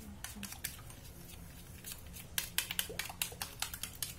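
Wooden chopsticks beating an egg and sugar mixture in a stainless steel bowl: the sticks click against the metal, sparse at first, then quickening to about five taps a second in the second half.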